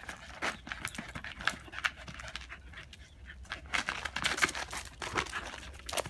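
A small dog panting as it pushes and mouths a worn football across asphalt, with irregular short scuffs and scrapes.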